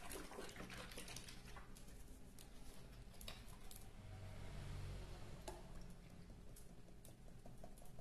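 Faint handling of a small plastic bottle of coconut milk: scattered light clicks as the cap is twisted off, and a soft pour of the milk into a plastic blender jar.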